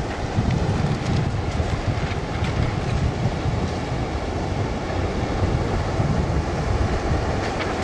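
Sea wind blowing on the microphone as a steady low rumble, over small waves washing onto a sandy beach.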